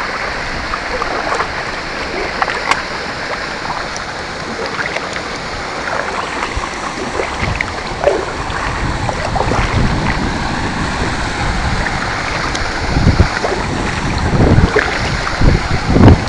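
Water splashing and lapping around a homemade bamboo kayak's hull as it is paddled, with short paddle splashes. Wind buffets the microphone in low rumbling gusts that grow stronger in the last few seconds.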